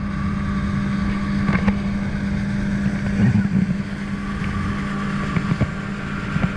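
Outboard motor of a rigid inflatable boat running steadily at speed, a constant hum over rushing noise. A few short knocks are heard through it.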